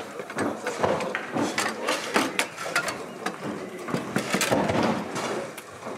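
Bonzini foosball table in play: rapid, irregular clacks and knocks as the ball is struck by the players' figures and rattles against the rods and table.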